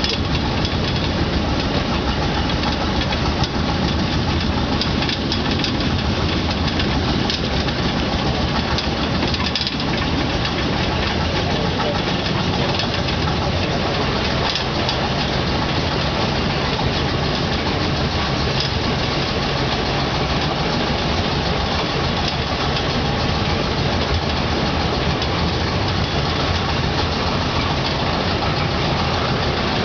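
Engine of a small 600 mm gauge field-railway locomotive running steadily as it hauls an open passenger car at low speed.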